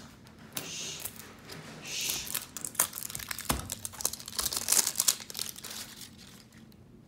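Plastic wrapping of an L.O.L. Surprise! Boys ball crinkling as it is peeled off by hand, a busy run of rustles and sharp crackles, loudest a little before the five-second mark and dying away near the end.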